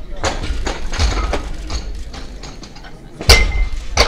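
A loaded barbell with Eleiko bumper plates dropped onto a lifting platform about three seconds in: a loud thud with a short metallic ring, then a second impact as it bounces near the end. Scattered knocks and clanks of other barbells come before it.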